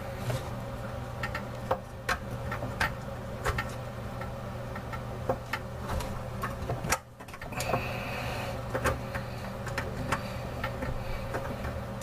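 Irregular light clicks and taps of faucet parts being handled and a mounting nut being threaded on by hand under a bathroom sink, over a steady low hum.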